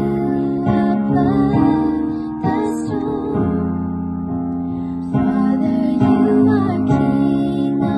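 Worship music: women singing a slow song over a steadily strummed guitar.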